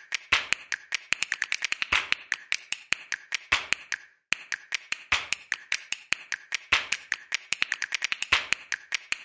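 Mountain bike's rear freewheel ticking as the bike coasts: fast, uneven clicks that pause briefly about four seconds in.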